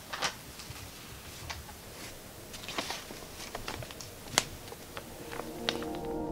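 A sheet of notebook paper being handled, rustling and crinkling in irregular small crackles, with one sharper crackle a little past the middle. Soft ambient music begins to fade in near the end.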